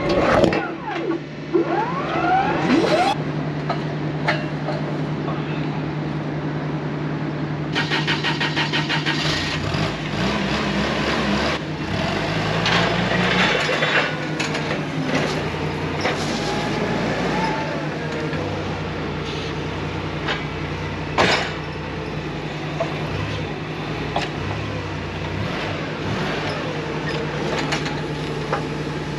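A vehicle engine running steadily, its pitch dropping about twelve seconds in, with scattered knocks and clanks.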